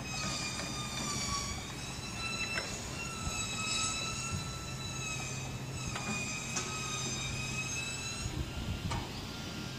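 Construction-site machinery: a high whine with several overtones that slowly wavers in pitch, over a steady low hum, with a few short knocks, about two and a half seconds in, twice around six seconds, and near the end.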